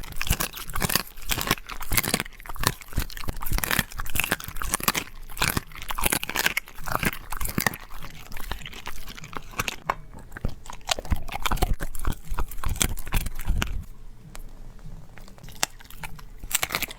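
Dog crunching and chewing raw meaty bones, a dense run of sharp crunches that thins out and grows quieter in the last few seconds.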